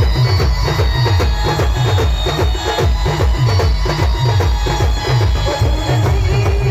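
Loud dance music with a heavy bass beat, about two hits a second, each bass hit sliding down in pitch, over drums and a busy melody.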